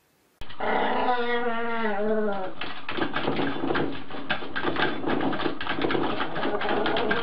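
A dog whining with a wavering pitch for about two seconds, starting about half a second in. Then a dense, rapid rattling and rustling as a toilet paper roll is pawed and spun on its holder.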